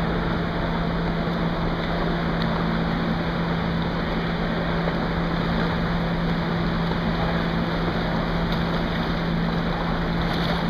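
Steady wash of splashing water in a swimming pool, with a constant low hum underneath.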